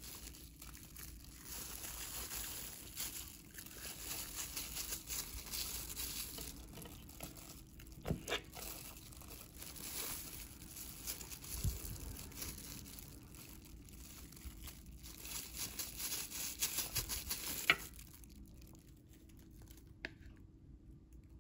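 Plastic disposable glove crinkling and rustling as a gloved hand holds and fills a cooked jumbo pasta shell. Now and then a light click or knock, with one sharp click a few seconds before the end.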